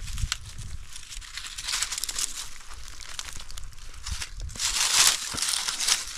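Dry oak leaves crackling and rustling as hands scoop and press them over a flat rock. The loudest rustle comes about five seconds in.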